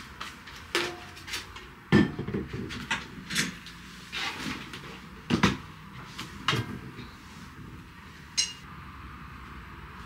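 Household handling noises: a series of irregular knocks and clatters of objects being moved and set down, with louder bangs about two seconds and five and a half seconds in.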